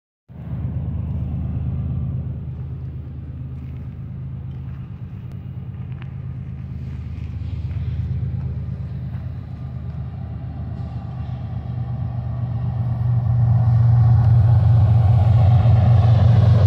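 Diesel engines of a freight train's lead locomotives, four GE diesel-electric units headed by a BNSF ES44DC, rumbling low as the train approaches, growing louder over the last few seconds.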